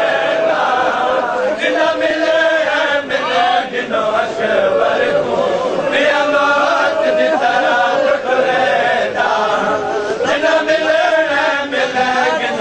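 A crowd of men chanting a Punjabi noha, a Shia mourning lament, loudly together in long rising and falling phrases.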